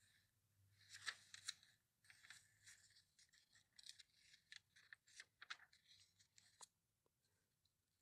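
Glossy catalog pages turned by hand: faint crinkling and rustling of paper in a series of page flips, with bursts about a second in, around two to three seconds in, and again from about four to six and a half seconds in.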